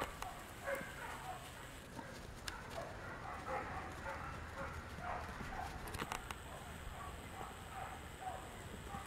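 Samoyed puppies playing on snow: faint, scattered short yips and whines, with occasional light pattering of paws.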